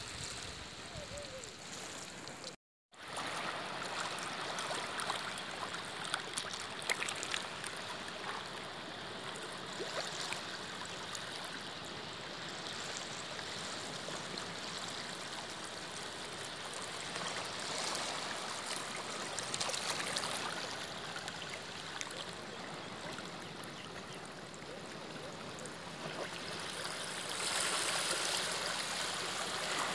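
Shallow seawater washing and trickling over a rocky, seaweed-covered shore, with foam fizzing and small waves lapping. The sound cuts out completely for a moment about three seconds in.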